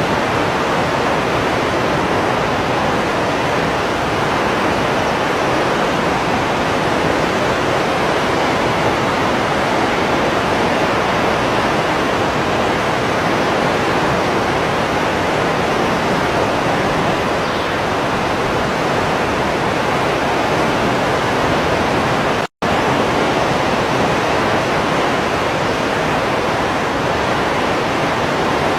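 Waterfall: a steady, loud rush of falling water. It cuts out for an instant about three quarters of the way through.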